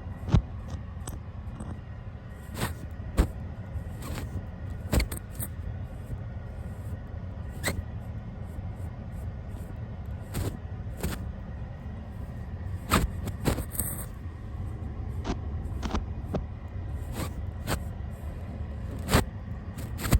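Brush bristles rubbed directly over the camera and its microphone: a steady low rumble with irregular soft taps and scrapes every second or two.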